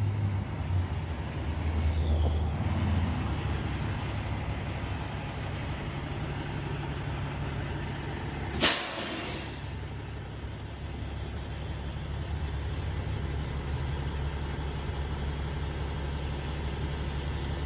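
Mercedes-AMG GT53's turbocharged inline-six running steadily while driving, with road noise and a low drone that swells briefly near the start. About nine seconds in there is one sharp pop followed by a short hiss.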